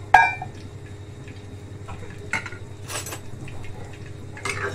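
Metal cooking utensils clinking against a metal pan: one sharp, ringing clink right at the start, then a few quieter clinks and knocks, the last near the end, over a steady low hum.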